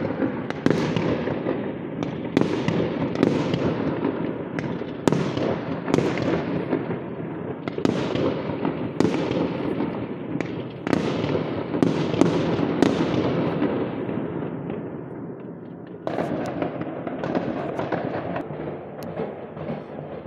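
Many fireworks going off at once across a city: a continuous rumble of distant bangs and crackling, with louder booms about once a second, each echoing away. The barrage thins out briefly near the three-quarter mark, then picks up again.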